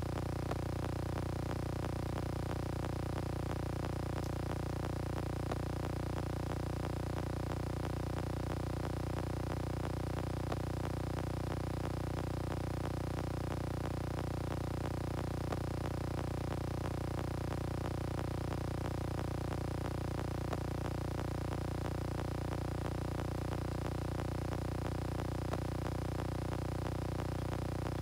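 A steady, unchanging hum made of several fixed pitches.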